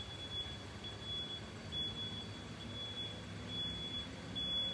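Faint low rumble of an Airbus A320-232's twin IAE V2500 turbofans at cruising altitude high overhead. A thin, steady high-pitched tone runs over it in stretches of about half a second to a second, broken by short gaps.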